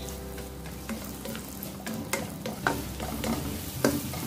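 Onion rings frying in butter in a non-stick wok, sizzling softly as a spatula stirs and turns them, with several sharp taps of the spatula against the pan, the loudest near the end. The onions are being sautéed until transparent.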